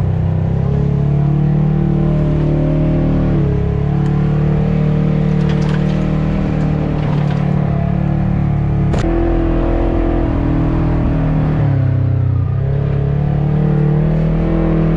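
Side-by-side UTV engine running as it drives a dirt trail, its pitch stepping down and up several times with the throttle, with a sharp dip about twelve seconds in before climbing again. A single sharp knock sounds about nine seconds in.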